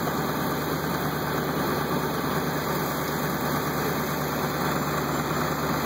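Fire engine's engine idling steadily after pulling up, a constant low hum under an even rushing noise.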